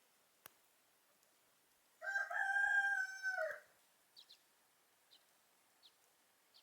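Rooster crowing once, a single crow of about a second and a half that drops off at its end, followed by a few faint, short, high chirps.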